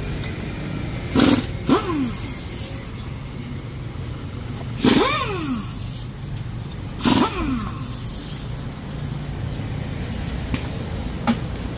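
A pneumatic impact wrench fires in four short bursts, each winding down in pitch after the trigger is let go, while a steady low hum runs underneath. These are lug nuts being run on the wheels.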